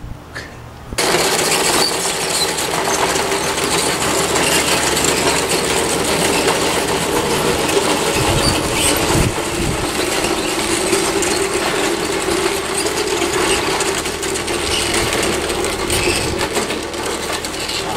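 Scratch-built RC bulldozer running on a concrete floor: a steady motor hum with a clatter of its tracks and running gear, starting suddenly about a second in.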